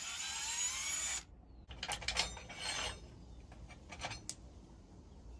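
Cordless impact wrench spinning on a leaf-spring U-bolt nut with a rising whine that cuts off about a second in. After that come scattered metal clinks and clanks as the U-bolts and axle parts are handled.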